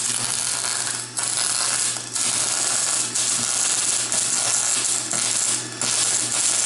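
Thermal Arc MIG welder arc crackling and sizzling steadily as a bead is laid with a whipping, corkscrew motion, the arc dipping briefly a few times, at about one, two and three seconds in and again near the end. A steady low hum runs beneath it.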